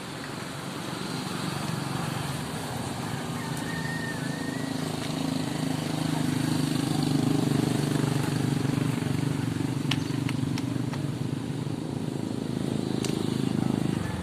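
Motorcycle engine running steadily, growing louder over the first few seconds.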